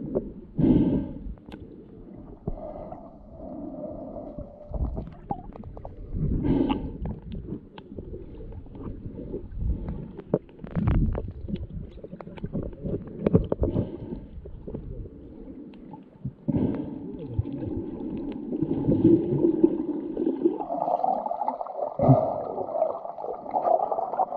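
Muffled underwater sound heard through an action camera's waterproof housing below the surface: water gurgling and sloshing around swimmers, with irregular bumps and short clicks.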